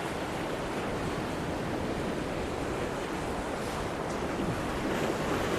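Rough sea surf breaking, mixed with strong wind: a steady rush of noise that grows slightly louder toward the end.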